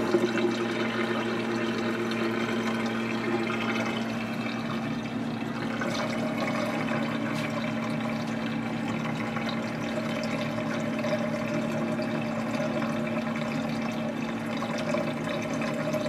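Dishwasher running: a steady wash of water over a constant low motor hum.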